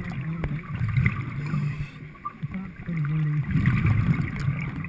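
Muffled low rumbling and bubbling from a diver's breathing and exhaust bubbles, heard underwater through a GoPro housing, coming in uneven surges.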